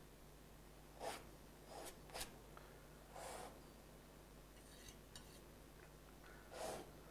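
Painting knife dragging thick water-mixable oil paint across canvas: a handful of short, faint scrapes with pauses between them.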